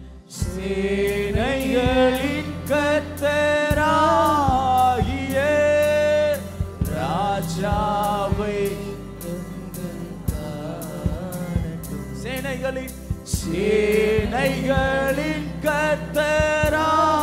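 A man singing a Tamil Christian worship song over backing music with a steady beat, holding long notes that bend in pitch. The music and voice come in just after the start.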